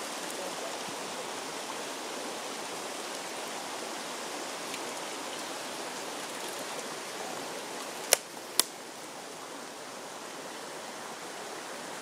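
Shallow forest stream running steadily over stones. About eight seconds in, two sharp knocks come half a second apart, louder than the water.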